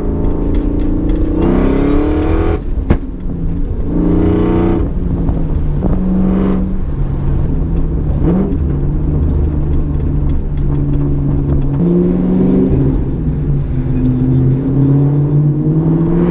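A car engine running and revving, its pitch climbing and dropping again and again as it pulls through the gears, with music underneath. A sharp click is heard about three seconds in.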